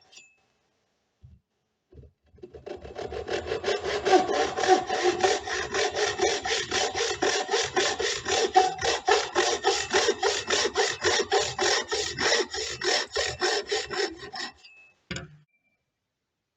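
Hand tool cutting into wood in quick, even strokes, about four a second, for some twelve seconds, then a short knock.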